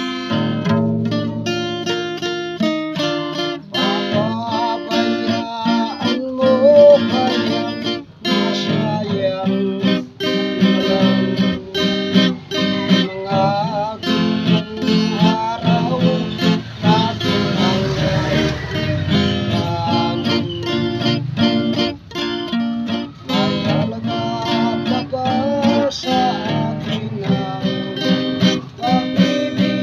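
Music led by acoustic guitar, picked and strummed in a quick run of notes.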